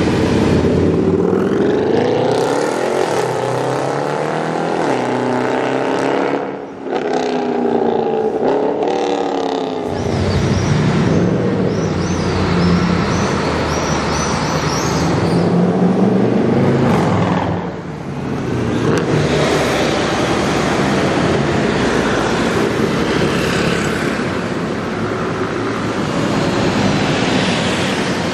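Mercedes-Benz C63 AMG's 6.2-litre V8 running loud as the car drives by, its pitch climbing under acceleration and dropping back at shifts or lift-off several times.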